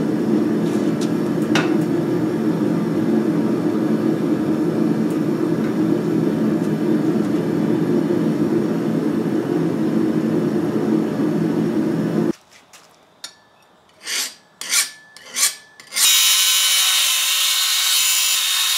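A steady, low rushing noise, as from a small forge's burner, while a knife blade is heated for heat treatment. About 12 seconds in it cuts off; a few short knocks follow as the bevel jig is handled, then a belt grinder runs with a loud, steady high hiss.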